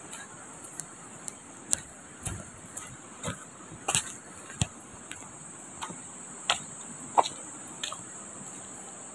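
River ambience: a steady rush of flowing water under a high, even insect drone. About a dozen short, irregular clicks and taps break through it, the loudest sounds.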